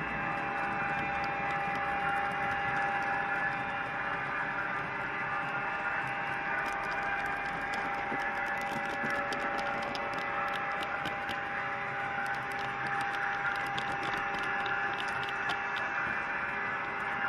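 Model train running along the track, heard from a camera riding on the train: a steady electric hum with one constant tone over a rushing noise, and scattered sharp clicks from about a third of the way in until near the end.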